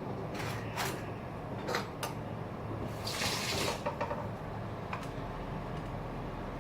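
A utensil clinking against a pot as instant noodles are stirred in a little water, with a brief rush of water a little after three seconds.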